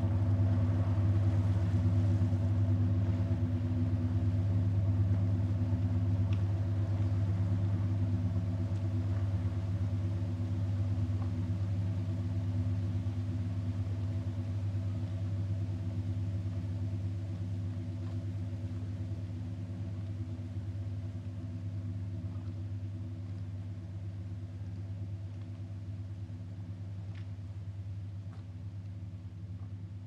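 Hydroplane engine running with a steady low drone that keeps one pitch while it slowly fades away.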